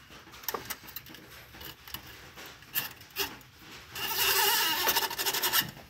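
Rubbing and scraping of a manual choke cable being fed through the cable clamp on a carburetor bracket, with scattered small clicks and a louder stretch of scraping about four seconds in that lasts over a second.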